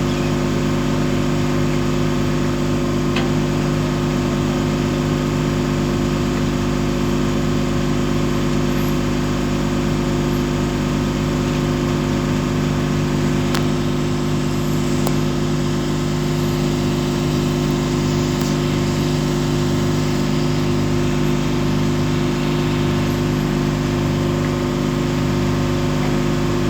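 Ship's engine machinery running steadily: a constant drone of several held tones over a low, uneven throb.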